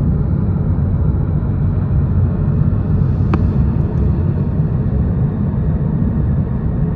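Steady low road and engine rumble of a moving car, heard from inside the cabin, with a single short click a little over three seconds in.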